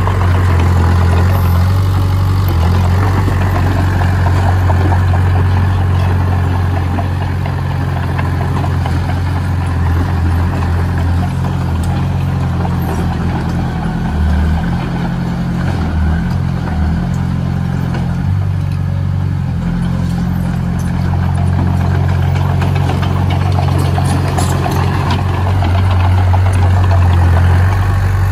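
Heavy diesel engine of earthmoving machinery running steadily, its low note stepping up and down a few times in the middle as the engine speed changes.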